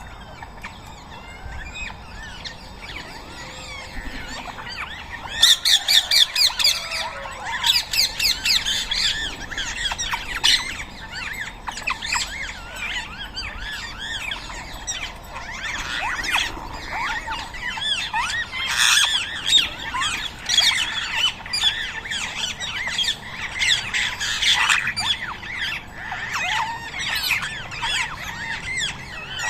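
Rose-ringed parakeets squawking: many harsh, rapid calls overlapping, starting about five seconds in and carrying on densely.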